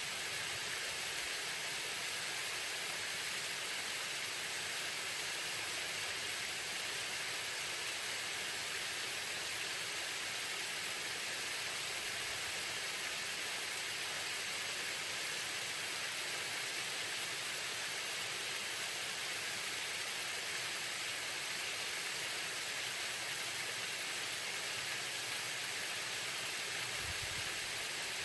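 Waterfall: water falling and splashing in a steady, even hissing rush.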